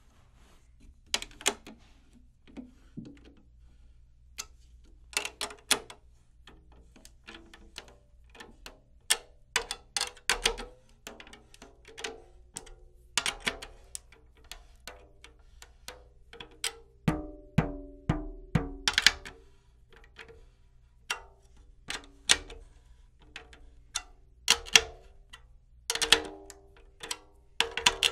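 Drum key clicking on the tension rods of a 10-inch tom as a new Evans head is tightened, with scattered taps on the head. In the second half the taps give short ringing drum notes as the head comes up to tension.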